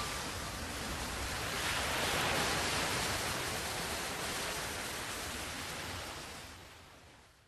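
Rushing river water heard through an underwater camera: a steady, muffled hiss of current that swells slightly and then fades out near the end.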